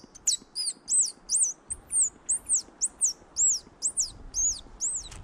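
A bird calling a rapid series of high, arching chirps, about three a second, that stops just before the end.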